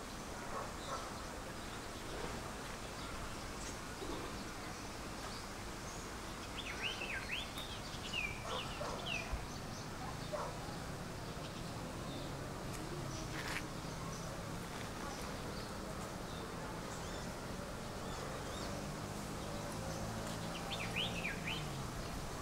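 Birds chirping in short clusters of quick, sharp notes, once about seven to eight seconds in and again near the end, over steady outdoor background noise with a low hum.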